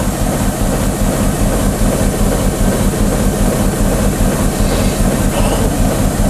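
Steady running noise inside the cab of a TEM2 diesel shunting locomotive under way: the locomotive's six-cylinder PD1M diesel engine running, mixed with the rumble of the wheels on the rails.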